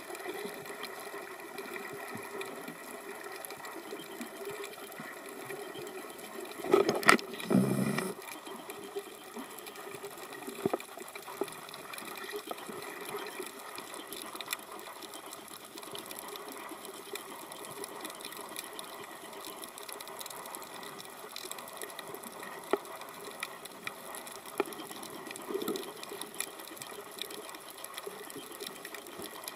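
Underwater sound picked up by a diving camera: a steady low hum with faint scattered crackling, and a loud bubbling rush about seven seconds in.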